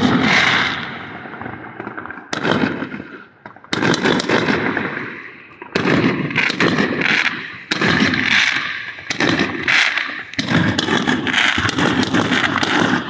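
Fireworks going off one after another: a string of sudden loud bangs every second or two, each trailing into a rapid crackle that fades away.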